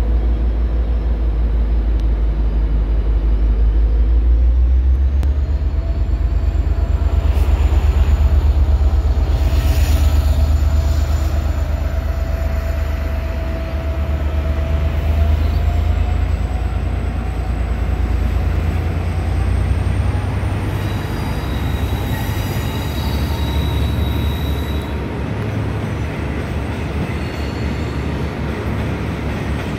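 V/Line N-class diesel-electric locomotive pulling away with a passenger train, its engine's deep rumble loudest about eight seconds in as it passes beneath. The rumble then eases as the carriages roll past with wheel noise and faint gliding tones.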